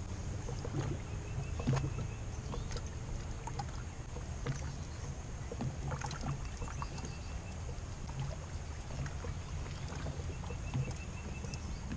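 Steady low rumble of open air around a small boat on a lake, with a few faint clicks of fishing tackle being handled.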